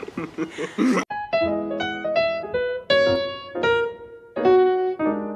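Background piano music: a light tune of single struck notes and chords, each note ringing and fading. It cuts in suddenly about a second in, replacing brief background noise.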